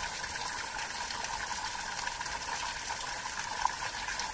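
Steady rushing of running water, with one short knock about three and a half seconds in.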